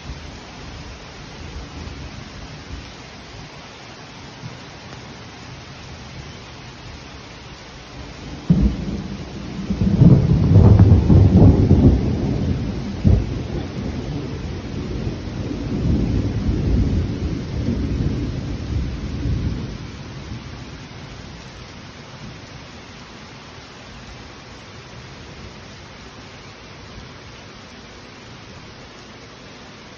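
Steady rain hiss under a long roll of thunder. The thunder breaks suddenly about a third of the way in, rumbles loudest for a few seconds, then rolls on more softly and dies away about two-thirds of the way through.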